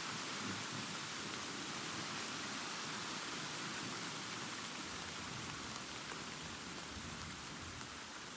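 Steady rain falling, with a low rolling thunder rumble underneath that eases slightly toward the end.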